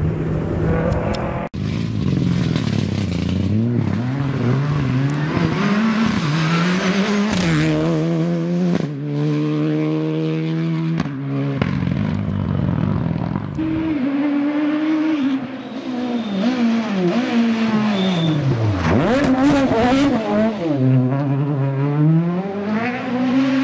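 Rally car engines revving hard as the cars pass, rising in pitch through quick gear changes and dropping away on lift-off and braking, over and over.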